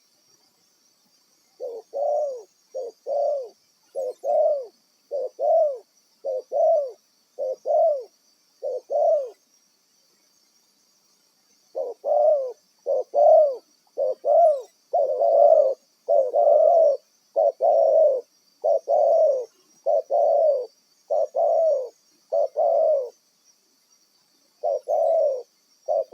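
Spotted dove (tekukur) cooing: a long run of short, rounded coos that repeats in groups, breaks off for a couple of seconds near the middle, then starts again.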